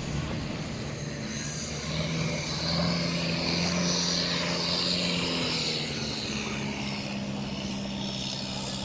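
An engine running steadily with a low drone, growing louder about two seconds in and then holding, with a higher hiss over it.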